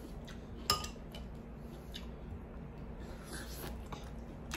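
Quiet eating sounds: faint spoon and mouth noises, with one light clink of a metal spoon against a bowl about three-quarters of a second in.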